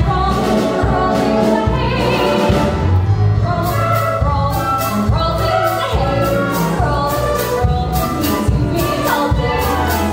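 A stage musical number: singing over band accompaniment, with a steady beat ticking a few times a second.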